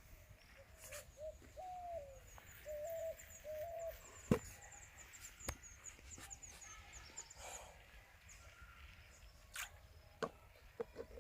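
A bird giving a run of short, low calls, with faint high chirping over it and scattered clicks, and one sharp knock about four seconds in.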